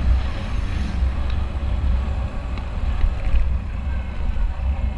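Wind buffeting the microphone of a moving Yamaha Mio motor scooter: a steady low rumbling rush of riding noise.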